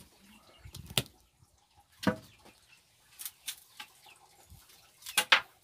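A wooden pole knocking and thudding in a post hole dug in dry earth, in irregular strokes: one near a second in, another near two seconds, a pair a little after three seconds and a quick double knock near the end.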